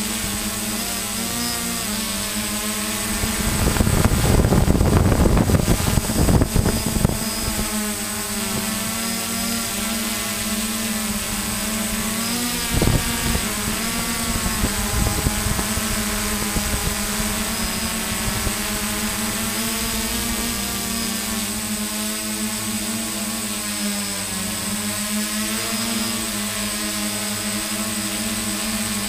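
Multirotor drone's electric motors and propellers whirring steadily as it hovers and turns, the pitch wavering slightly with motor speed. Loud rumbling buffeting comes between about three and seven seconds in, and a single knock near the middle.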